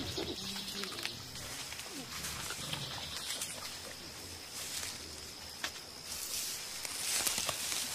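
Mountain gorilla giving short, low grunts, the soft contact calls gorillas use to keep in touch while foraging. Foliage rustles near the end.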